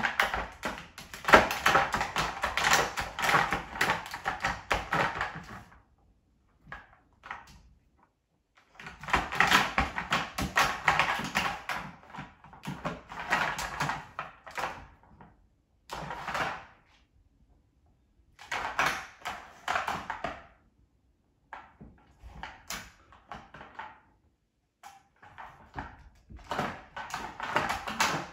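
A puppy pawing and nosing a plastic interactive puzzle toy on a hardwood floor: rapid plastic clattering and clicking in several bursts of a few seconds each, with short pauses between.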